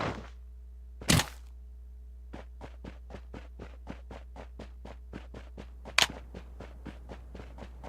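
Two sharp knocks about five seconds apart, with a run of light, even taps, about three or four a second, between and after them over a steady low hum.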